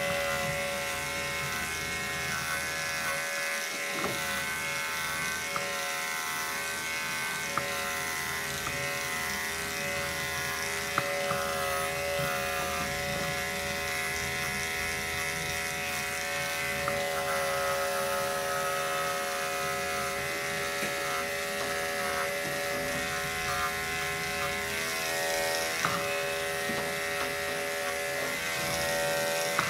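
Electric dog grooming clippers running steadily with an even buzz as they are drawn through a Scottish terrier's coat for a full body cut.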